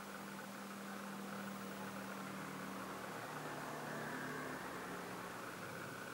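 Steady faint hiss with a low, slightly wavering hum underneath: background room tone.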